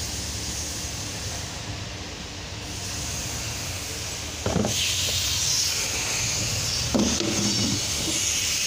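Engine oil being poured from a plastic jug into a plastic funnel on the engine's filler. About halfway through there is a knock followed by a steady hiss, and another knock near the end as the jug is handled.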